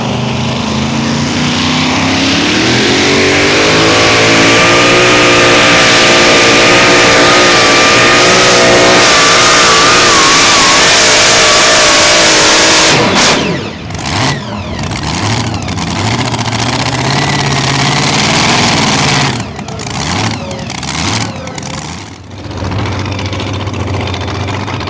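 Pulling truck's engine climbing to full throttle over the first few seconds and held there for about ten seconds, its pitch wavering under the load of the sled, then cut off suddenly about halfway through. Afterwards the engine runs lower, with a few short revs near the end.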